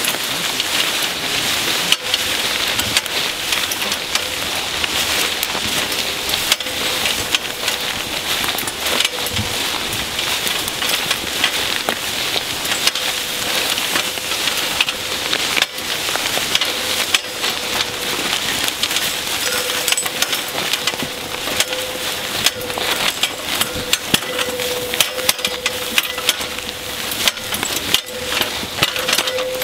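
Steady rustling and crackling of footsteps swishing through tall grass and brush, with many small clicks and knocks from a metal ladder stand being carried along.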